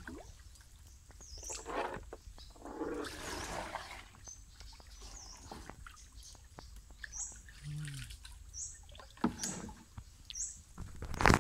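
A wooden hand paddle stroking and splashing in shallow canal water as a small boat is paddled along. A bird gives repeated short high chirps, and there is one sharp knock near the end.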